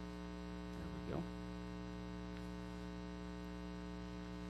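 Steady electrical mains hum in the audio, with a brief faint rising sound about a second in.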